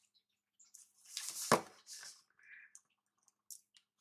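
Paper and sticker sheets rustling and crinkling as they are handled, with a sharp tap about a second and a half in, then a softer brushing sound and a few light ticks.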